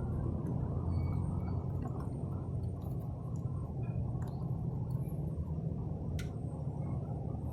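Fiat Punto engine idling with a steady low rumble, and a faint click about six seconds in.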